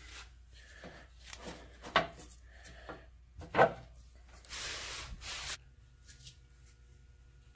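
A few sharp knocks and rubs from the lathe's loose speed-change handles being handled against the machine, the loudest knock about three and a half seconds in, then about a second of rubbing and shuffling.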